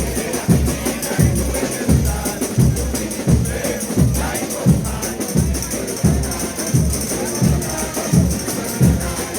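Frevo street orchestra playing brass and percussion over a steady drum beat, about one and a half strokes a second.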